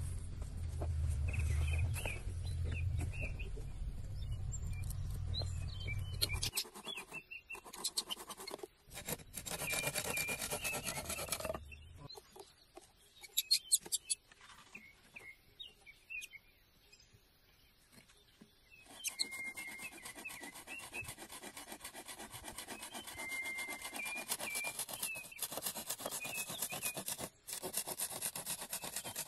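Folding hand saw cutting through a green bamboo pole: steady back-and-forth strokes through the last third, after a low rumble in the first few seconds and some broken scraping and clicks. Small birds chirp now and then.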